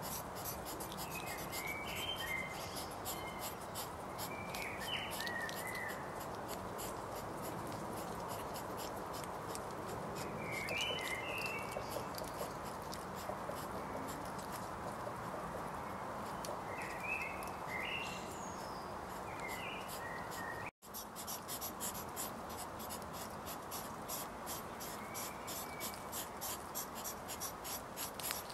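Scratchy rustling and crunching of hedgehogs foraging and shuffling over gravel, over a steady background hiss. Short chirping bird calls come a few times, in small clusters.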